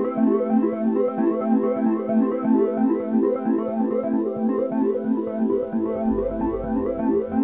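Background music: a bright synthesizer and electric-piano tune with quick repeating notes, joined by a bass line about six seconds in.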